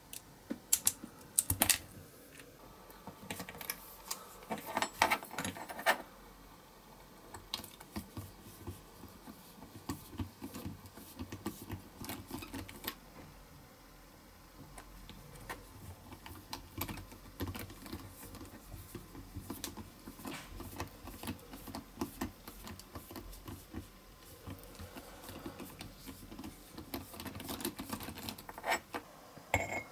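Small metal hand tools and toy parts clicking, tapping and scraping on a workbench mat in an irregular run of light, sharp clicks, loudest in the first few seconds.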